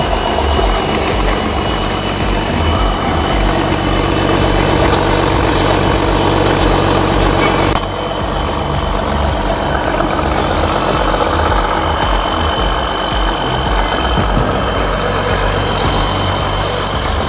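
Cummins 6CT8.3 inline-six diesel engine, built by DCEC, idling steadily on a test stand, with a thin steady high-pitched whine.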